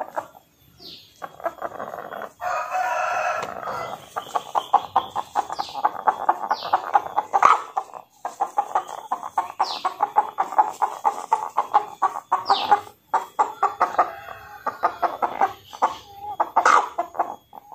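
Merawang chickens: a rooster crows once early on, then a long run of rapid clucking follows, with short high falling peeps now and then.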